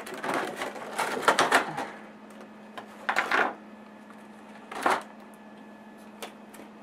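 Clear plastic clamshell packaging crinkling and crackling in the hands as a graphics card in foam is worked out of it. The crackling comes in short bursts: a longer run in the first two seconds, then briefer ones about three and five seconds in.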